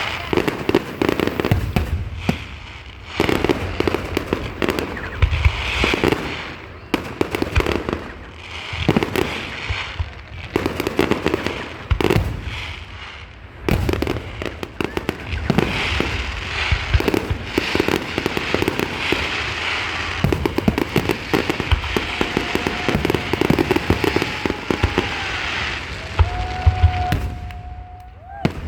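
Fireworks display in a dense barrage: rapid overlapping booms and crackling bursts with hardly a pause. Near the end a held whistle-like tone sounds over the bursts.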